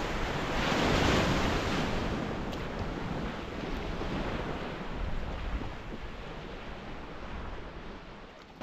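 Small waves breaking and washing up a sandy beach, with wind on the microphone; the surf swells loudest about a second in and eases off toward the end.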